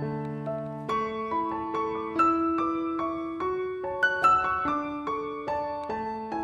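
Background piano music: gentle chords and melody notes struck at an even pace, each ringing and fading.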